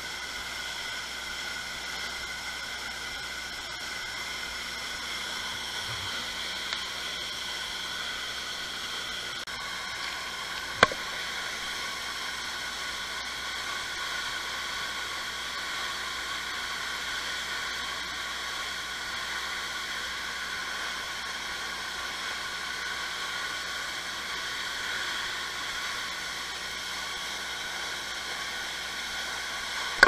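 Steady rushing of a waterfall plunging into its pool, with one sharp click about eleven seconds in.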